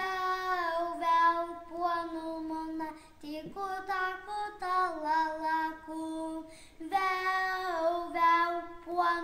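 A young girl singing a Lithuanian folk song solo, with no accompaniment. She pauses briefly for breath about three seconds in.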